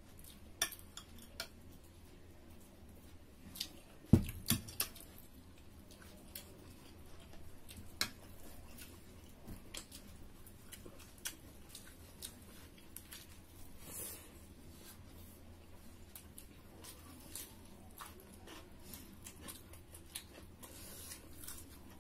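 Tableware at a meal: scattered clicks and clinks of plates, a drinking glass and a spoon, with one sharp knock about four seconds in, the loudest sound here.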